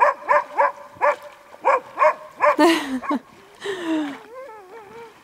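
A frightened dog barking hysterically in a fast run of high yelps, about three a second, then breaking into a falling whine and a wavering, howling whimper near the end.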